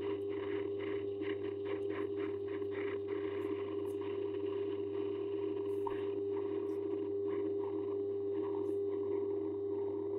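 Metal lathe running with a steady motor whine and hum while the turning tool cuts a small spinning metal part, adding a scratchy cutting and chip noise and a few faint ticks.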